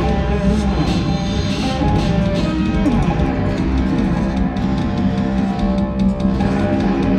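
Instrumental metal jam led by electric guitar, playing steadily and loud.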